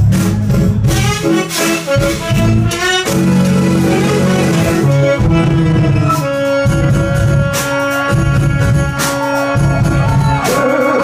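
Live jazz-fusion band playing: electric guitar, keyboards and drums, with long held notes from about six seconds in.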